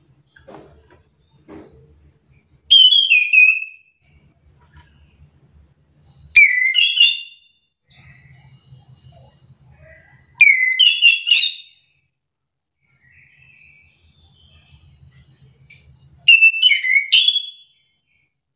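Chestnut-capped thrush (anis kembang) singing: four loud phrases of quick, gliding whistled notes, each about a second long, with pauses of a few seconds between them and faint soft chirps in the gaps.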